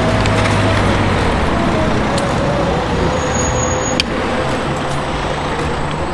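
Steady road-vehicle noise: a low rumble with a faint steady whine, and one sharp click about four seconds in.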